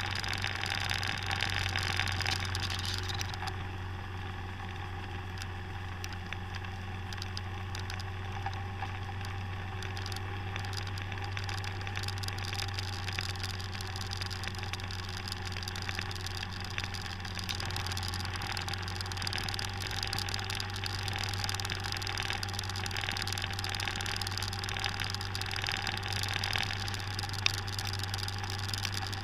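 Motor scooter's engine running at a steady cruise, a constant low hum, with wind and road noise that is stronger for the first few seconds. A single sharp tick near the end.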